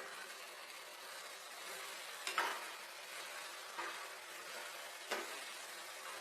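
Food sizzling in a hot pan while being stirred, with a spoon knocking against the pan three times.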